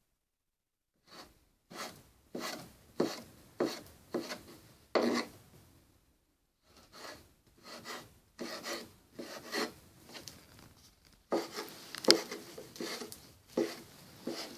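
Knife cutting pork leaf fat on a wooden board in repeated sawing strokes, about one and a half a second, with a pause about five seconds in and quicker strokes near the end.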